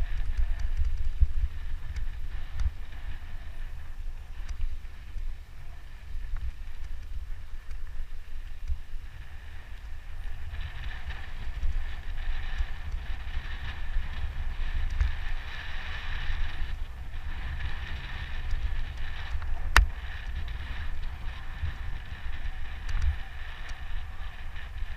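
Wind buffeting the microphone of a mountain bike's camera while riding a dry dirt trail, with tyre and rolling noise over the loose surface that grows louder about ten seconds in. One sharp click about two-thirds of the way through.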